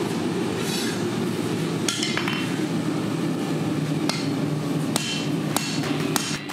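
A hand hammer strikes red-hot 80CRV2 knife steel on an anvil, about five sharp ringing blows at an uneven pace, while the point of a chef's knife blade is being forged and refined. A steady low rush continues underneath.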